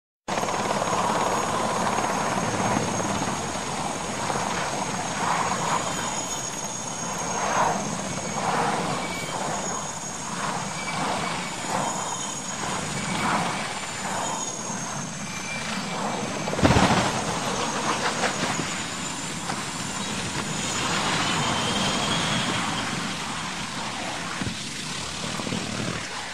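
Military transport helicopter running low overhead: a steady high turbine whine and rotor noise with a pulsing beat. About 17 seconds in comes one sudden loud impact, the helicopter striking the ground, and the noise then runs on more roughly.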